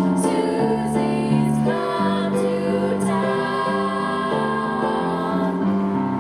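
Youth choir singing, holding chords that change from note to note.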